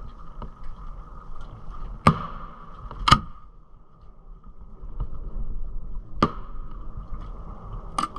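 Fireworks going off: four sharp bangs, about two, three, six and eight seconds in, over a steady background hiss.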